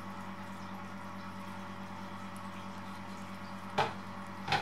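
Kittens eating soft weaning food from saucers: faint wet lapping and smacking over a steady low hum. Two short, sharp, louder sounds come about two-thirds of a second apart near the end.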